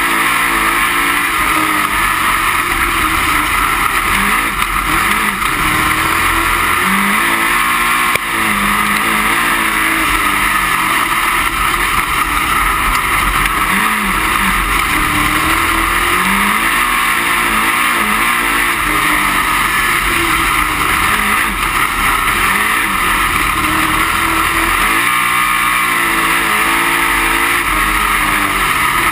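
Dirt-track race car's V8 engine heard from inside the cockpit at race pace, loud throughout, its pitch rising and falling again and again as the throttle is opened down the straights and lifted for the turns, over a constant rush of wind and chassis noise.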